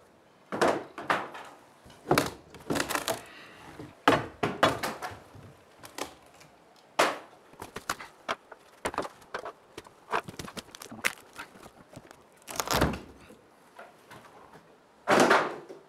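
Old wooden boards being pulled and knocked down from ceiling beams: irregular knocks, cracks and thuds of wood, with two longer crashes, one about two-thirds of the way through and one near the end.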